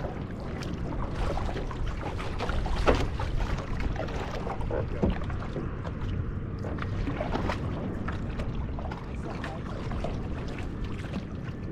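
Water lapping and slapping against the hull of an outrigger canoe on open sea, in many small irregular splashes, with a low wind rumble on the microphone.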